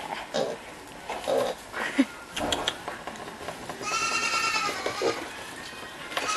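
Piglets grunting and snuffling at a hand in a straw pen, with one held, high-pitched bleat-like animal call about four seconds in.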